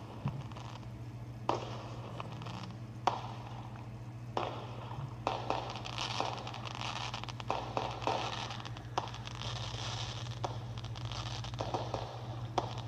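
Fireworks crackling, with sharp pops every second or so over a continuous fizzing crackle, and a steady low hum underneath.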